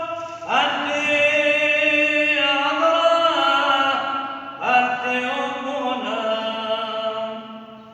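A man chanting an Arabic Christian liturgical prayer solo in long held notes. Two sung phrases, the second fading away near the end.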